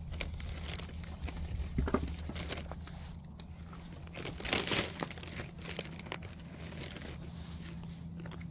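Crinkling and rustling of a plastic tarp and rooftop-tent cover being handled, with a louder crunch about halfway through as a person jumps down from the vehicle onto gravel.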